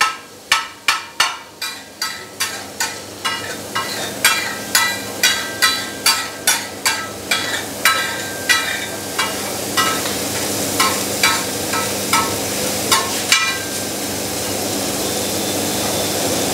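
Steel spatula striking a large iron tawa in a steady rhythm, about two to three ringing taps a second, as it chops mutton brain (magaz) frying in desi ghee. The tapping thins out and stops about 13 seconds in, leaving the ghee sizzling.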